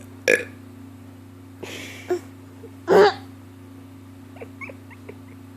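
A few short burps, the loudest about three seconds in, followed by a few faint clicks near the end.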